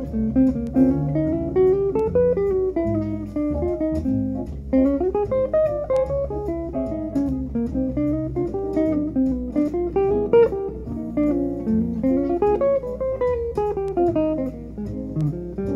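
Peerless Monarch archtop jazz guitar played through an AER Compact 60 amplifier: a bebop single-note line of quick, even eighth notes climbing and falling across the changes, resolving and dying away near the end.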